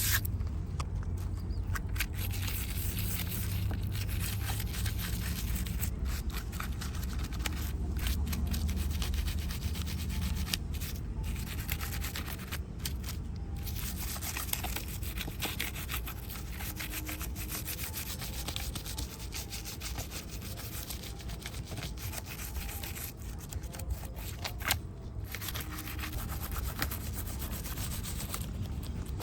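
Steady scratchy rubbing and scrubbing on a small die-cast model motorcycle as it is cleaned, with a few brief pauses.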